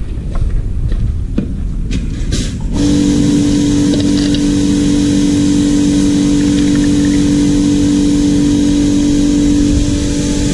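Low rumble with a few handling knocks, then about three seconds in a motor-driven machine starts up and runs with a loud, steady hum.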